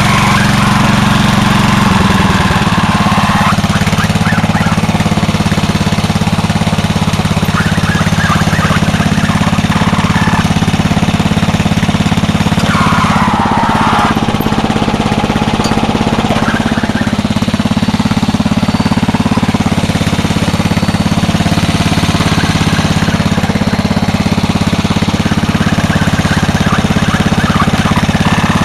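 Lawn mower engine on a homemade go-kart, just started and running steadily and loudly, with a higher clatter that comes and goes.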